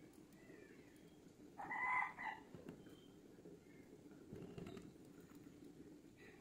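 A single brief animal call in the background about two seconds in, a held, steady note lasting under a second, over faint low background noise.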